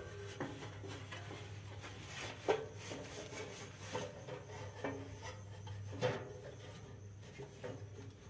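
Faint rubbing and scraping noises with a few light knocks, over a low steady hum.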